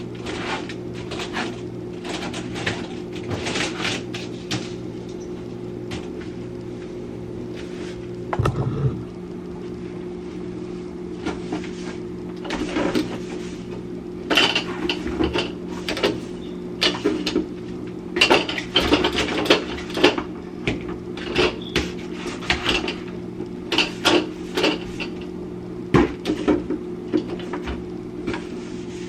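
Items and containers being handled while a refrigerator is cleaned out: short knocks and clatters, more frequent in the second half, over a steady electrical hum.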